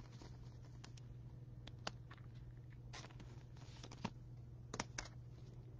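A few faint clicks and a brief rustle of trading cards and plastic card holders being handled, over a steady low hum.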